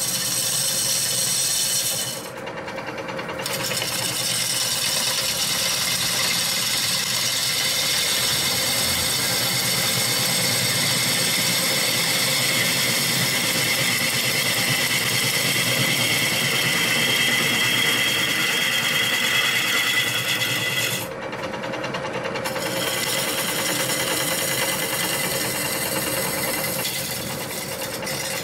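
Turning gouge cutting a spinning river birch bowl on a wood lathe: a steady scraping, hissing cut over the lathe's running sound. The cut drops out briefly twice, about two seconds in and again about three-quarters through.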